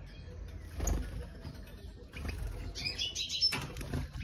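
European goldfinch giving a quick series of short, high chirps from about two seconds in, after a dull thump about a second in.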